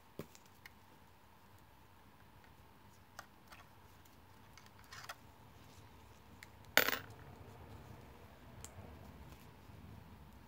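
Small handling noises of fishing tackle being worked by hand: a few faint clicks and light taps while a pellet is threaded onto braided line with a baiting needle, and one sharper, louder tap about two-thirds of the way through.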